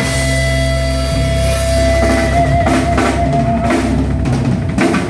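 Live gospel band playing without vocals: drum kit with kick and snare under a bass line, and a long held note that wavers near the middle.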